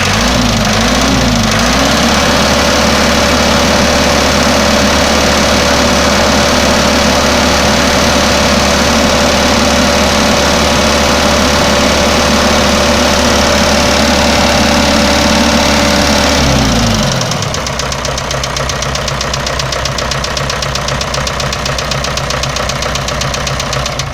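Hyundai D4AL diesel engine blipped a few times, held at raised revs for about fourteen seconds, then dropping back to a steady idle. It runs with the ringing knock whose cause the owner is asking about.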